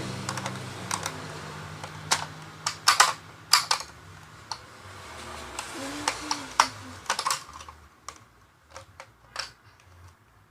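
Plastic clicks and clacks of a Nerf Split Strike blaster's two halves being handled and fitted back together. The clicks are irregular, with the sharpest snaps about three seconds in and again near seven seconds.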